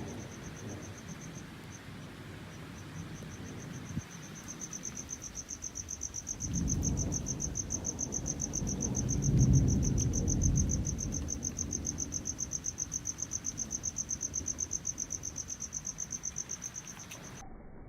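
Crickets chirping in a fast, steady high-pitched pulse, with a low rumble swelling and fading away underneath from about six to eleven seconds in.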